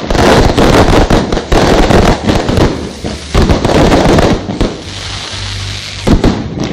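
A string of firecrackers going off: a dense, rapid run of loud cracks and pops, thinning out about five seconds in, then a few sharp bangs near the end.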